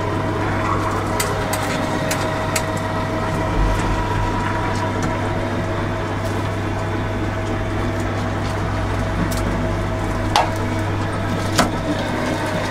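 Electric meat mincer running steadily with a hum, grinding soaked chickpeas, coriander, parsley, spring onion and garlic into falafel mix. A few light knocks near the end.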